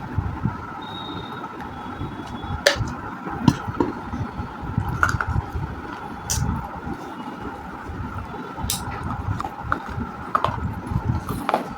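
Sharp crunches of someone biting and chewing baked clay, several of them a second or two apart, over steady background traffic noise.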